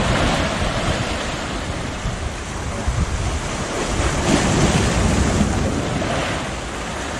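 Sea waves washing over shoreline rocks, one surge swelling louder about four seconds in, with wind buffeting the microphone.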